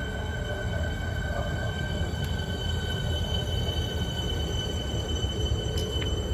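Siemens Nexas electric multiple unit running past at speed: a steady rumble of wheels on rail, with several steady high-pitched tones above it.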